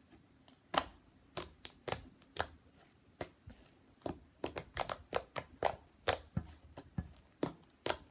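Homemade glue-and-detergent slime being squeezed and worked by hand, giving an irregular run of sharp clicks and pops from trapped air bubbles, two or three a second, starting about a second in.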